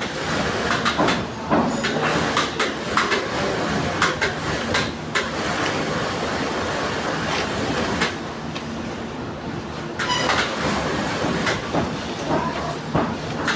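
Industrial sewing machine running with a steady clatter and a low hum, with sharp clicks and knocks scattered through it.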